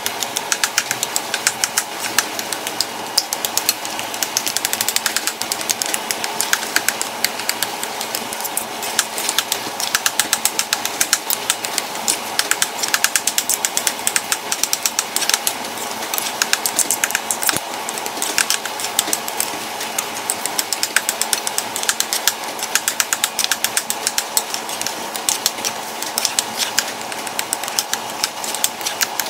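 Two metal spoons mashing boiled potatoes in a nonstick frying pan: rapid, irregular clinking and scraping of steel on the pan and on each other, several clicks a second, without a break.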